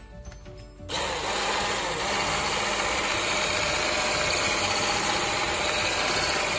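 Electric mixer switched on about a second in and then running steadily. Its beaters are whipping cream with strawberry purée to thicken it.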